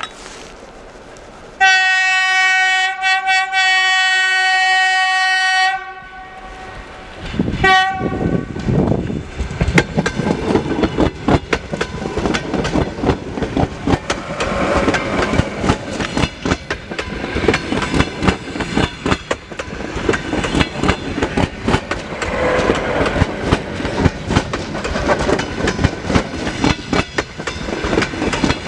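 EP2D electric train's horn sounds one long blast of about four seconds, then a short second blast, as a greeting from the crew. The train then runs close past, its wheels clattering rapidly over the rail joints.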